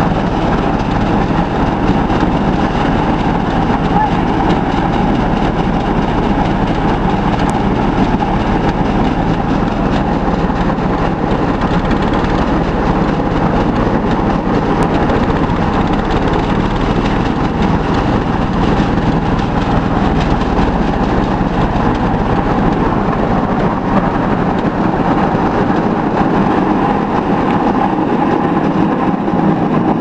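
Engine-driven rice thresher running steadily while threshing, a loud, even mechanical drone with a constant hum.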